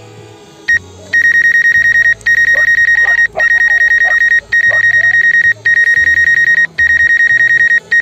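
An electronic alarm beeping: a loud, high, rapidly pulsing tone in stretches of about a second with short breaks between them, starting about a second in, over quieter background music.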